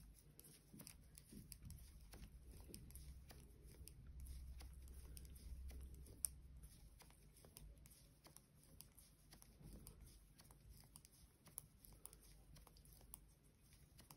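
Faint, irregular clicks and taps of knitting needles, with light rustling of yarn, as a row of stitches is knitted by hand.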